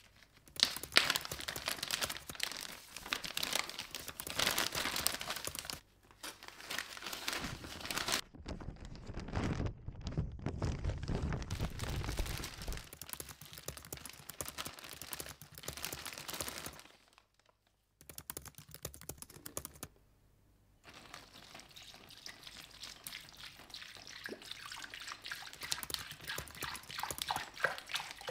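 Clear zip-lock plastic bag crinkling and rustling as it is handled and the rusty cast-iron sad iron is set inside, then liquid poured into the bag near the end.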